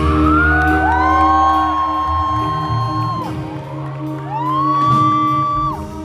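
Live pop-rock band playing with a male lead voice belting two long held high notes into the mic, each scooping up into pitch, over sustained bass and keys.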